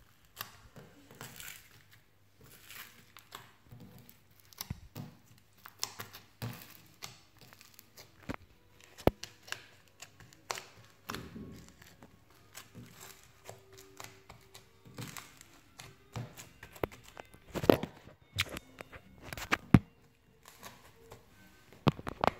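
Slime being stretched and squeezed by hand, giving irregular sticky clicks, pops and tearing sounds, with the sharpest snaps in the last few seconds.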